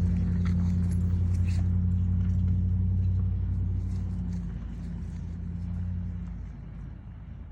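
A vehicle's engine running with a steady low hum that grows fainter from about halfway through and drops away near the end, as it moves off.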